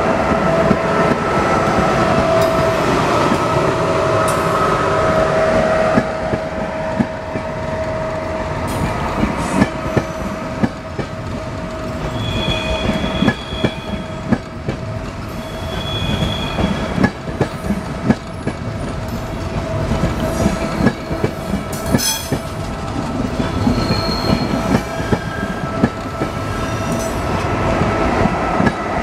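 Passenger train with an E.401 electric locomotive rolling slowly past close by: coach wheels clicking and clacking over the rails under a steady high whine, with a few brief higher squeals partway through.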